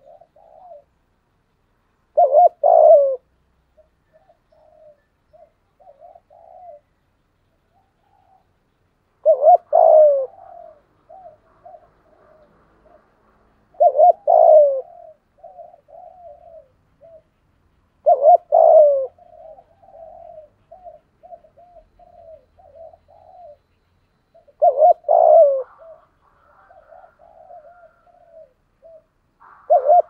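Spotted dove cooing: a loud coo phrase about every five seconds, each trailed by a run of softer, shorter coos.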